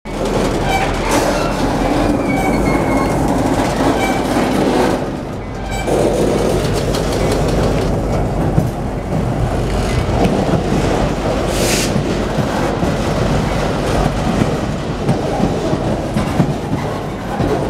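Freight cars, an autorack and a lumber-loaded flatcar, rolling past at close range as the train backs up: a steady rumble of steel wheels on rail with clacking over the rail joints. Brief high wheel squeals come through now and then.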